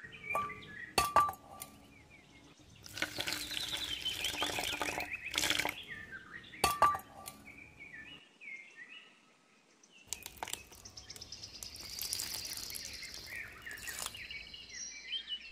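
Sharp metallic clinks of a small steel dish, one about a second in and another near seven seconds, with a stretch of rattling and scraping noise between them. Birds chirp faintly.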